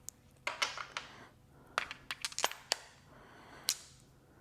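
Hand tools being handled, giving a string of sharp, irregular metal clicks and clacks, about eight of them, such as sockets or wrenches knocking together while a 10 mm is picked out.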